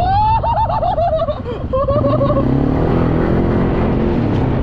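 A motor vehicle engine running, its pitch rising and easing around the middle, with a high wavering tone over the first second and a shorter one about two seconds in.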